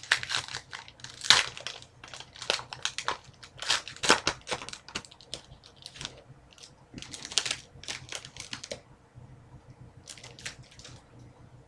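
Hockey card pack wrapper crinkling and rustling as the bonus pack is opened and the cards are handled: a run of quick crackles and clicks that stops about nine seconds in, with a few more shortly after.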